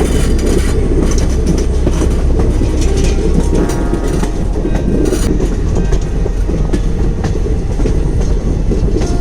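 Indian Railways passenger train running along the track, recorded from aboard: a steady rumble with the wheels clicking and clacking over the rails.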